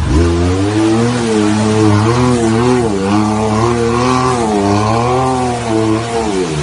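Engine of a tubular-frame 4x4 off-road buggy revving. Its pitch jumps up at the start, then rises and falls over and over as the throttle is worked, and drops away near the end.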